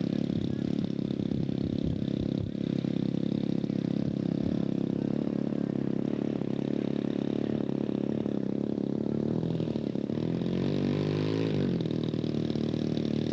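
Model aircraft engine running steadily, with its pitch dipping and rising again about ten seconds in.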